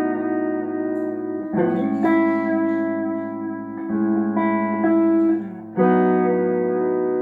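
Tagima TW61 electric guitar playing a slow chord progression, each chord struck and left to ring, with a new chord roughly every two seconds. It is being played as a sound test after servicing.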